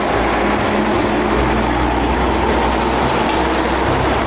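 Steady rumbling mechanical noise like a vehicle running, with low humming tones that shift now and then.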